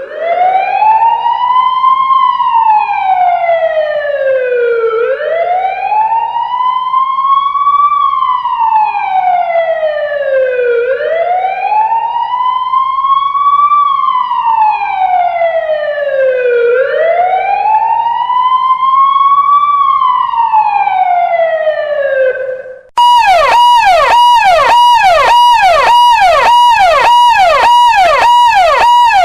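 Emergency-vehicle siren sound effects. A slow wail rises and falls about four times, each cycle taking about six seconds. Near the end it cuts briefly and switches to a fast electronic yelp of about two sweeps a second.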